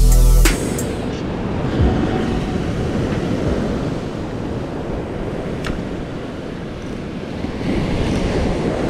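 Rough surf breaking on rocks, with wind buffeting the microphone; electronic music cuts off about half a second in.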